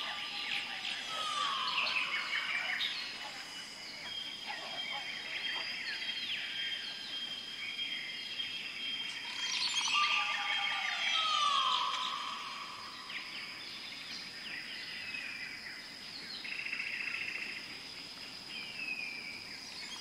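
Several birds singing and chirping together in an outdoor ambience, with clear whistles that slide downward twice and a steady high tone underneath.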